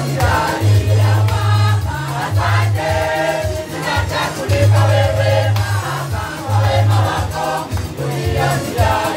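Choir and congregation singing an upbeat gospel song together, over a bass line that pulses in short repeated notes, with percussion and hand claps.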